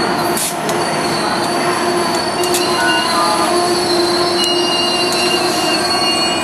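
Amtrak Northeast Regional passenger train, led by two AEM-7 electric locomotives, rolling into the station as it slows. A loud, steady rumble runs under several high, held squealing tones.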